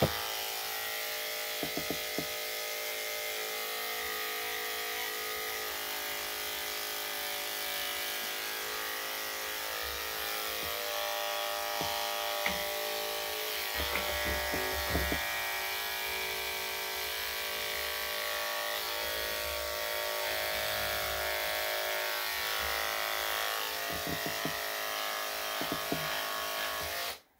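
Electric dog grooming clippers fitted with a #10 blade, running steadily as they shave a dog's coat: a continuous buzzing hum that shifts slightly in pitch as it works, switched off suddenly at the very end.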